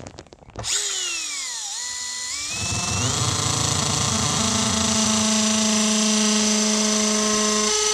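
Erbauer cordless drill boring into the side of a plastic dustbin. The motor whine starts about half a second in and falls in pitch at first. It then climbs in steps and runs steady.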